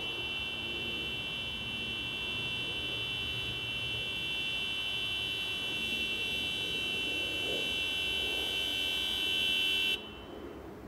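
A steady, high-pitched electronic buzzing tone made of several close pitches, over a faint low hum. The tone cuts off abruptly near the end.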